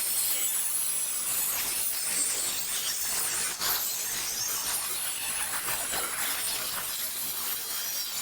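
A power tool cutting through the steel shell of an old water tank, a steady dense noise heavy in the highs, with a brief dip about three and a half seconds in, cutting off right at the end.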